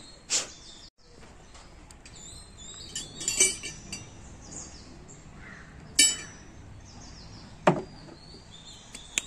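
Metal parts clinking at the hub of a removed motorcycle wheel as they are handled: a few separate clinks, a quick cluster of them, one sharp clink, then a duller knock near the end.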